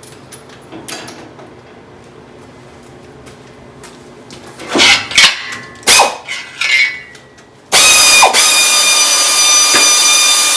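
A handheld power tool driving a bolt: a few short loud bursts, then a steady high whine for about four seconds that stops just before the end.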